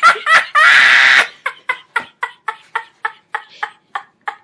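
Meme laughing sound effect: a person lets out a long breathy shriek, then laughs in short evenly spaced 'ha' bursts, about four a second.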